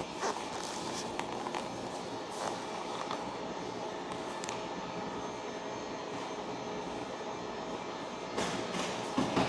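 Electric heat gun blowing steadily as it heats vinyl wrap film being stretched over a car bumper. A few brief clicks come through, more of them near the end.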